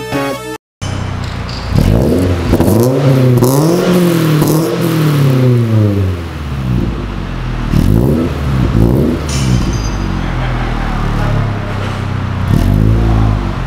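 Subaru BRZ's 2.0-litre flat-four engine revved while standing, through a full aftermarket exhaust system. It rises and falls from idle in a run of revs, then two short blips, and another rev near the end.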